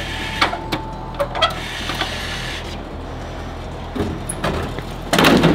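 Live-bait vending machine dispensing a selection: a one-second beep as the button is pressed, then the dispensing mechanism whirs for a couple of seconds over the machine's steady hum, with a few clicks. A loud clatter comes near the end.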